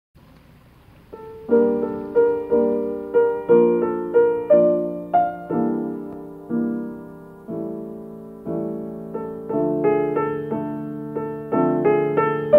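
Slow piano music begins about a second in: a melody of single struck notes, each ringing and fading.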